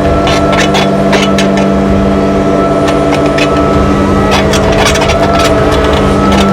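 Caterpillar 305 mini excavator's diesel engine running steadily under load, with irregular clanks and knocks from the machine as it digs.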